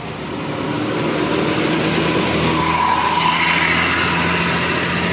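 A road vehicle's engine and tyre noise swelling about a second in and staying loud as it passes close by.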